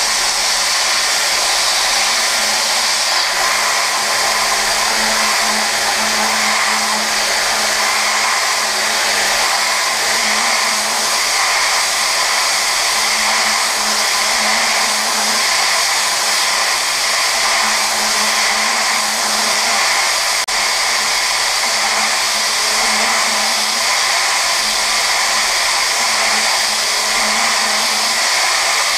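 Okuma GENOS M560-V vertical machining center hard-milling S7 tool steel hardened to 56 Rc. The 15,000 rpm spindle and small end mill make a steady high whir and hiss as they take a Z-level roughing pass with 0.002" stock left. A low hum swells and fades every couple of seconds as the tool steps through the cut.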